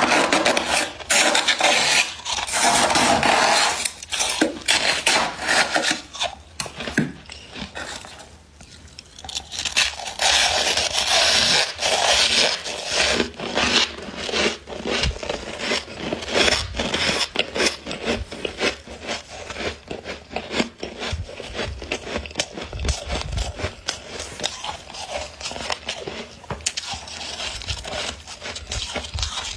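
Thick, snowy freezer frost being scraped and scooped by hand: a dense, crunchy scraping full of sharp crackles. It comes in loud stretches, with a brief lull about eight seconds in.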